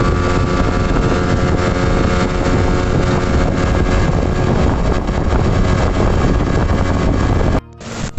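Small tiller-steered outboard motor running at speed, driving a small aluminium boat, with wind on the microphone. The sound cuts off abruptly near the end.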